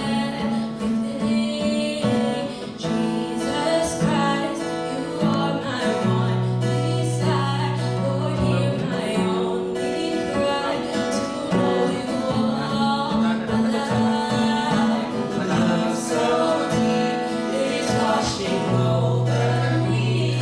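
Music: a song with singing over guitar and sustained bass notes.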